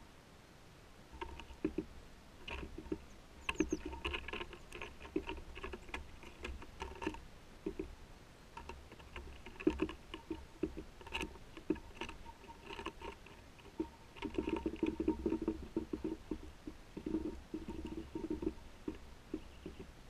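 Great tits pecking and scrabbling at a bird table close to the microphone, at fat balls in a mesh net and a suet block: a run of quick, irregular taps and knocks, busiest about a quarter of the way in and again in the last quarter.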